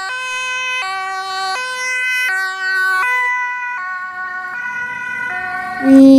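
Two-tone ambulance siren: a steady hi-lo wail that alternates between two pitches about every three-quarters of a second. A louder, wavering sound cuts in at the very end.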